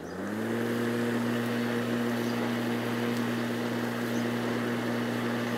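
Cobra MX3440V 40-volt cordless lawnmower's electric motor spinning up to speed in the first half second, then running with a steady hum as the blade cuts grass.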